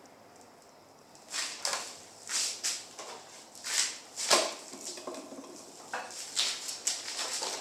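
Rasping metal-on-metal strokes as a hand tool works a bolt held in a small vise: about a dozen short, harsh strokes at an uneven pace of roughly two a second, starting a little over a second in.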